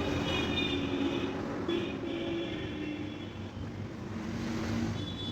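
Ceiling fan running at full speed after a bearing replacement: a steady whoosh and hum with no bearing noise, a sign that it runs smoothly. A thin high tone comes and goes over the first few seconds.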